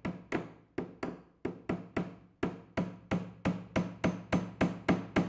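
Hammer driving a small nail into wood with quick, even taps, about four a second, each with a short ring and the taps growing louder toward the end. The nail is temporary, there only to hold a glued wooden piece while the glue dries.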